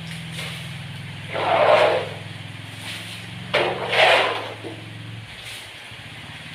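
Muddy floodwater splashing as it is scooped up and thrown out, in two loud splashes about a second and a half in and again around four seconds. A steady low hum runs underneath and breaks off briefly after about five seconds.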